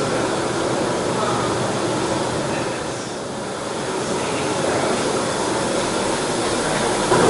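Steady rushing, rumbling machine noise, dipping slightly about three seconds in.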